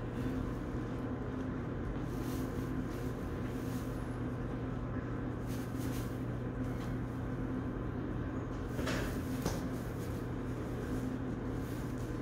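Steady low mechanical hum, with a couple of brief noises about nine seconds in.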